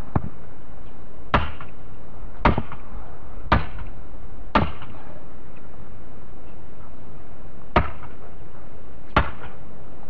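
Hammer blows on the top of a wooden fence post, driving it into the ground, struck one-handed. Seven sharp knocks: five about a second apart, a pause, then two more near the end.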